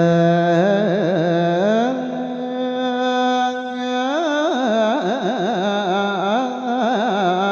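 A single male voice chanting an Isan thet lae sermon in a long, drawn-out melisma without words. It holds one note, steps up to a higher held note about two seconds in, then breaks into wavering ornamental turns for the rest of the passage.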